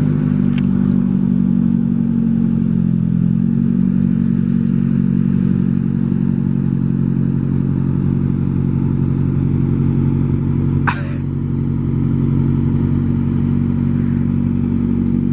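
A lowered pickup truck's engine idling steadily. About eleven seconds in comes one brief, sharp squeak.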